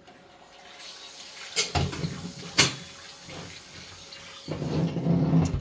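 Tap water running into a stainless steel pot at the kitchen sink while raw lamb pieces are rinsed, louder in a rush near the end. Two sharp knocks in the middle.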